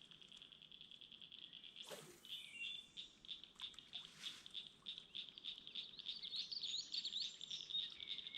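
Summer evening chorus of calling frogs and insects: a steady high-pitched pulsing trill, with scattered short bird chirps over it. A brief rush of noise comes about two seconds in.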